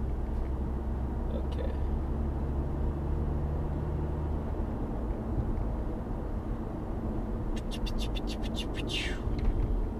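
Car driving on a paved road, heard from inside the cabin as a steady low engine and road-noise rumble. The low hum in it shifts about halfway through. Near the end comes a quick run of sharp clicks, about seven a second, followed by a short falling sound.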